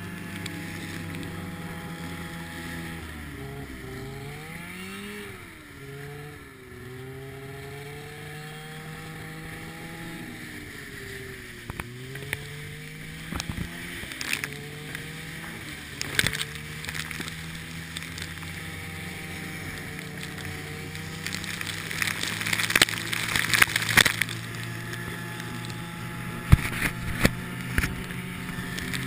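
Polaris Indy Widetrak snowmobile's two-stroke engine running under way, its pitch rising and falling with the throttle in the first half, then holding steady. In the second half, sharp knocks and rattles come in bunches, loudest about two-thirds of the way through.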